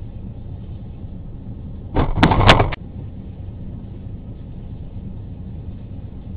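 A loud crunching scrape with several sharp knocks, lasting under a second, about two seconds in: a flood-borne Nissan hatchback bumping against the truck's body. A steady low rumble runs underneath.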